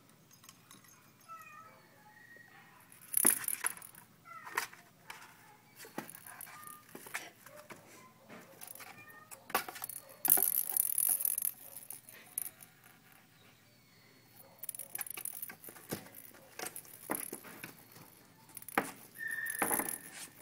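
Two kittens playing and scuffling: scattered light knocks, with rustling and scratching of claws on fabric and cardboard, loudest in bursts about three and ten seconds in. A few faint, short, high kitten mews are mixed in.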